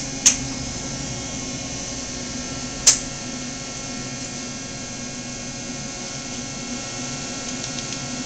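Cincinnati-Milacron Arrow 1000 CNC vertical machining center powered up and humming steadily, with several steady tones. Two sharp clicks come through, one just after the start and one about three seconds in.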